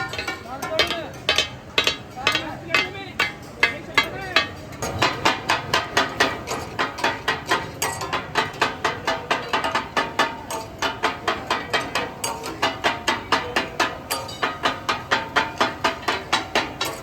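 Metal spatulas striking and chopping on a flat iron tawa griddle, the clatter that gives katakat its name. A fast, steady run of ringing metal clacks, about four a second, settles in about five seconds in. Voices are heard early on.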